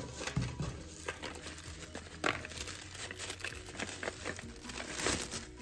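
Thin paper wrapping crinkling and rustling as hands unfold it from around a small boxed item, in irregular crackles.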